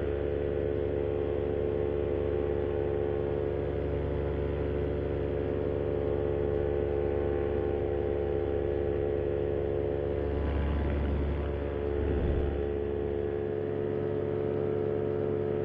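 Vittorazi Moster 185 single-cylinder two-stroke paramotor engine and propeller running at a steady cruise throttle, a constant droning note. The low rumble swells briefly about ten seconds in. The pilot finds the engine running less smoothly than usual on a propeller whose blade tips he has re-repaired.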